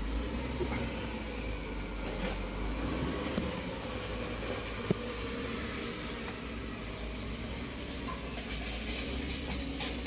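Steady low rumble with a hiss over it, and one sharp click about halfway through.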